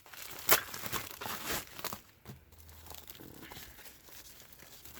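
Packaging crinkling and rustling as a parcel of silver is unpacked by hand, with a sharp crackle about half a second in, busiest in the first two seconds and fainter after.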